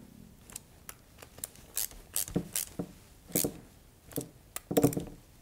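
T-handle hex driver tightening the screws of a gas-key staking tool on an AR-15 bolt carrier, driving the tool's points into the gas key: scattered small metal clicks and scrapes, with a few heavier clunks about two and a half, three and a half and five seconds in.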